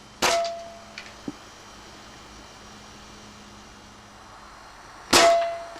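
Two air rifle shots about five seconds apart, each a sharp crack followed by a short metallic ring that fades within half a second. A couple of faint clicks come between them.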